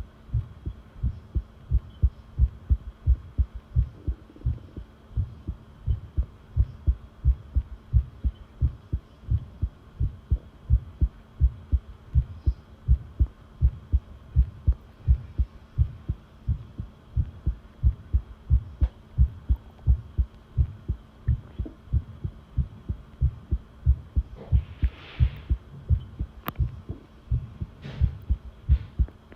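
Human heartbeat recorded close up: steady, regular low thumps over a faint steady hum, with a brief rustle near the end.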